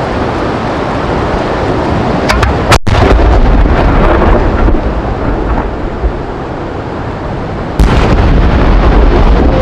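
An 8-inch (200 mm) Italian cylinder shell firework is launched from its mortar a little under three seconds in with a sharp blast and a low rumble. Just before the end it bursts overhead with a loud boom that rolls on.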